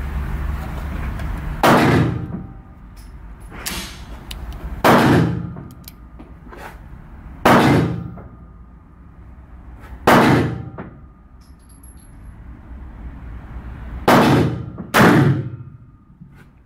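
1892 Spanish regulation revolver firing six shots, each with an echoing tail: spaced two to four seconds apart at first, the last two about a second apart. A fainter bang comes between the first and second shots.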